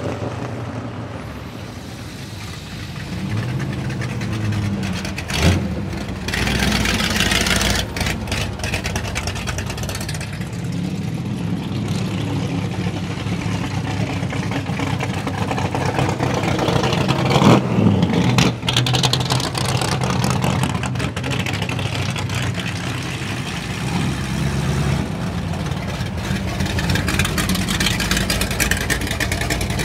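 Ford 427 V8 engines of 1963 Ford Galaxie 500 race cars running, mostly at a steady idle with throttle blips. There is a sharp rev about five seconds in and a louder rev a little past halfway.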